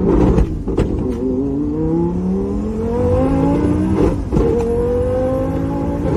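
Car engine accelerating hard through the gears: its pitch climbs steadily and drops sharply at each upshift, just after the start, about four seconds in, and again at the very end.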